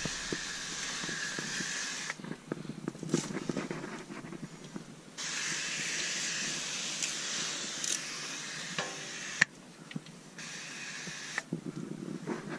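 Degreaser being sprayed onto a vehicle chassis rail: three long hissing sprays, the longest about four seconds, with small knocks and clicks in the pauses.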